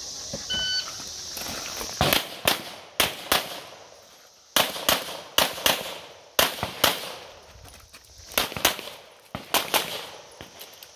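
A 9mm Canik METE SFT Pro pistol firing a rapid string of shots, mostly in quick pairs, with sharp cracks ringing off the range berms. A short electronic beep sounds just under a second in, before the first shot.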